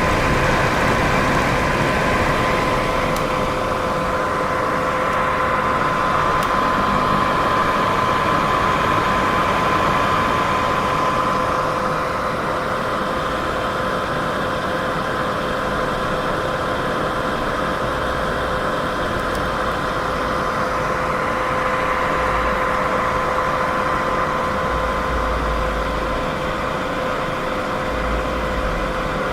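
Continuous white noise for sleep: a steady hiss with a faint steady hum of two tones beneath it, swelling and easing slowly.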